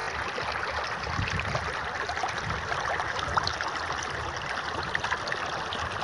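Steady wash of open river water, with a few faint scattered ticks.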